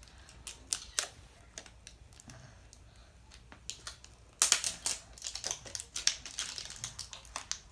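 Shiny plastic wrapping of a LOL Surprise Underwraps ball crinkling and rustling in fits as it is peeled off by hand, with a denser burst of crinkling about four and a half seconds in.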